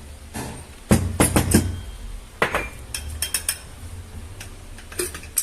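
Irregular metallic taps of a hammer on a steel socket extension, driving a broken ball bearing out of its housing: a quick cluster of strikes about a second in, another cluster around three seconds, and one or two more near the end, each with a short clinking ring.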